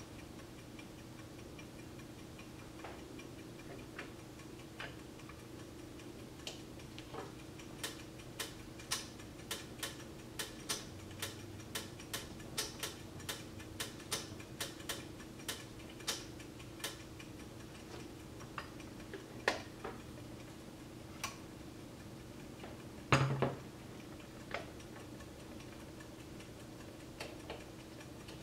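Irregular sharp mechanical clicks from an antique Henri Jacot grande sonnerie carriage clock being handled, its hands moved with the strike set to silent, so no bells or gongs ring. The clicks come about two a second at the busiest, with one louder knock late on.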